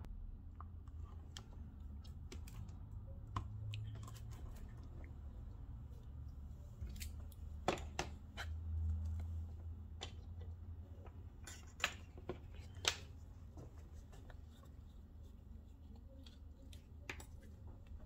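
Scattered small clicks and taps from handling a Samsung Galaxy Tab A 10.1's back cover and frame, with a few sharper clicks about halfway through, over a low steady hum.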